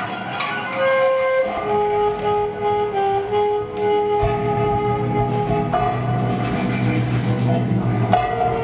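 Live free-improvised music: a saxophone holds long notes that step between pitches, over a prepared guitar played flat on the lap and sparse percussion clicks. A low drone comes in about four seconds in and drops out near the end.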